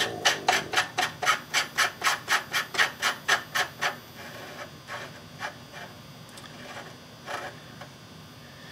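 Muzzle brake being twisted by hand onto the threaded muzzle of an AR15 barrel, metal threads scraping in quick regular strokes about four a second. The strokes stop about four seconds in, leaving a few faint single scrapes.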